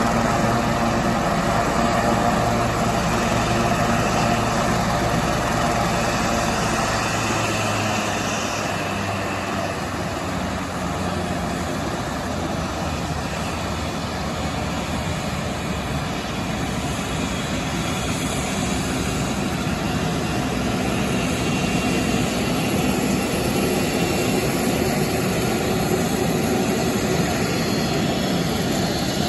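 Sikorsky S-76C helicopter on the ground with its rotors turning, its twin Turbomeca Arriel 2S2 turboshaft engines running steadily. The deepest rumble drops away about seven seconds in.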